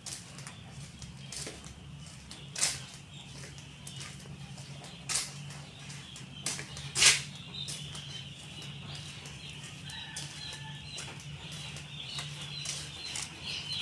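Broiler chickens in a poultry house: a few sharp flaps or knocks, the loudest about seven seconds in, then a run of high chick peeping from about halfway on, over a steady low hum.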